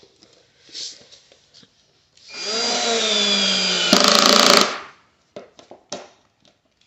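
Cordless drill driving a screw through a bracket into a flat-pack furniture panel: one run of about two and a half seconds, the motor's whine falling slightly in pitch under load, then turning harsher and louder for its last moment before it stops.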